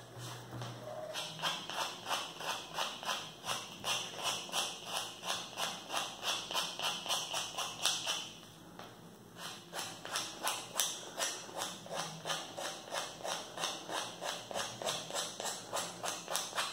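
Nail file rasping back and forth along the edge of a small paper-covered MDF piece, sanding off the overhanging paper. The strokes are quick and even, about three a second, with one short pause a little past the middle.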